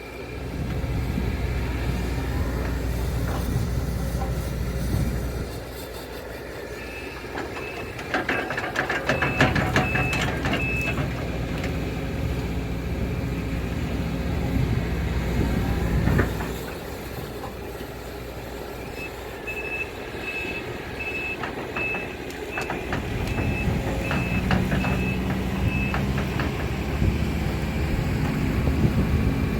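Case CX210D excavator working, its engine surging under load and easing off several times. A high beeping alarm sounds about twice a second in two stretches, and there is a burst of clattering about eight seconds in.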